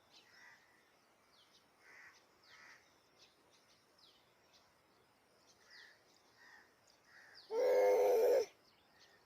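Small birds chirping faintly and repeatedly in short, high, falling notes. Near the end there is one loud, harsh call that lasts about a second.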